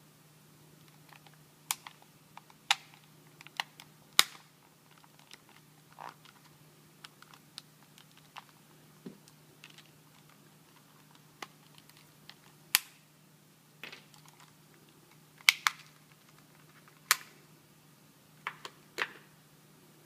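Irregular sharp plastic clicks and snaps from handling and pressing the parts of a partly reassembled PlayStation 3 controller, with its buttons being fitted and tried. A faint steady low hum runs underneath.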